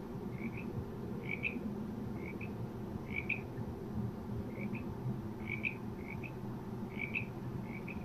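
Frogs calling: short double croaks about once a second, a fainter and a louder call taking turns, over a steady low hum.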